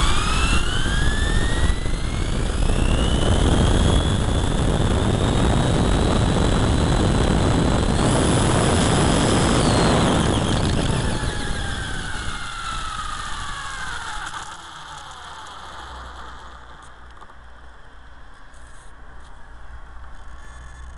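Brushless electric motor of a 10s-powered 1/8 RC buggy (a Neu 1521), heard from a camera on the car. The whine rises in pitch as the car accelerates, over a rushing road and wind noise, and climbs higher at full throttle about eight seconds in. It then falls away as the car slows, and the last few seconds are much quieter as it stops.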